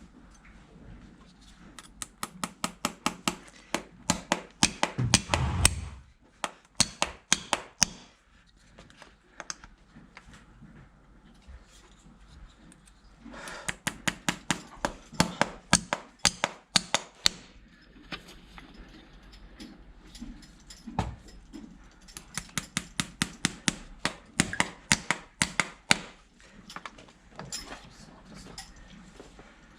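Farrier's hand tools working on a horse's hoof: three runs of quick, evenly spaced sharp knocks, about four or five a second, each run lasting several seconds with short pauses between.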